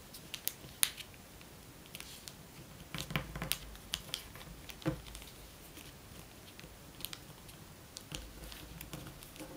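Sheet of origami paper being folded and creased by hand: scattered crisp crackles and taps of the paper, bunched about three seconds in and again near the end.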